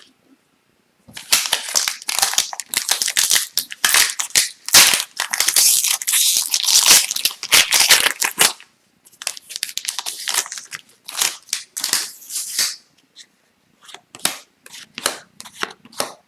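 Foil trading-card pack wrappers being torn open and crumpled: a dense crinkling crackle for several seconds, a second stretch of crinkling, then scattered clicks as the cards are handled.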